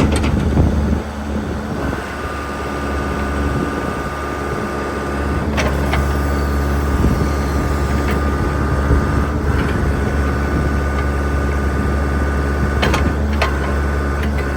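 John Deere 310D backhoe loader's diesel engine running steadily with a higher whine over it, briefly dropping and then picking back up in the first few seconds. Several sharp clanks and knocks come through as the machine is worked.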